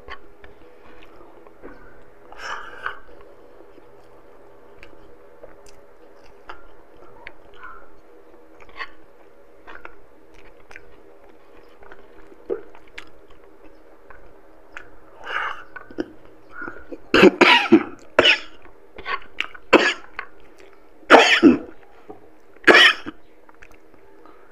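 Quiet chewing, then a run of loud coughs and throat clearing in the second half, about five or six sharp coughs over several seconds, set off by the heat of the chili in the food.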